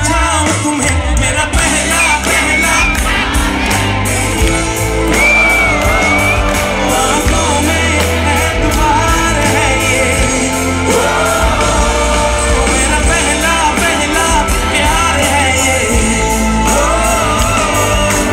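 A live band plays a loud pop-rock song with heavy bass and a steady beat while the singer sings into a microphone, with shouts from the crowd.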